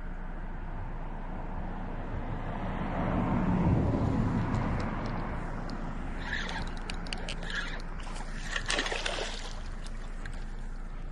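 A hooked Oscar cichlid splashing and thrashing at the water's surface, in several bursts in the second half. Before that comes a swell of low rumbling handling noise on the microphone as the rod is swept up to set the hook.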